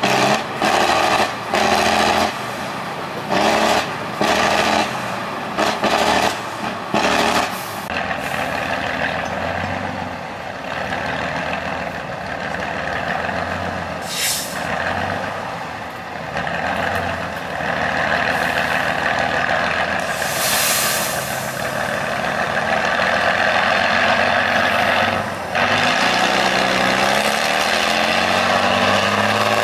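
Tatra 813 8x8 trial truck's diesel engine, revved in a string of short bursts for the first several seconds, then running steadily under load as the truck crawls over the slope. Two air-brake hisses come about halfway through and two-thirds of the way in, and the engine revs up near the end.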